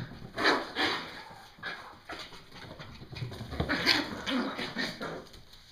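Morkie puppies playing, making a few short dog noises, one of them a thin whimper about four seconds in.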